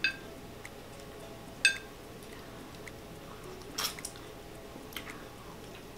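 Short, wet sucking sounds of lips drawing juice from a cut lemon: a brief squeaky suck about two seconds in and a longer slurp near four seconds, with a faint one after.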